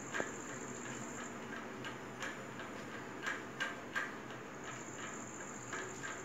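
Cotton children's clothes being handled and turned over: soft rustling with light scattered ticks and crinkles. A thin steady high-pitched tone sounds underneath, dropping out for a few seconds in the middle.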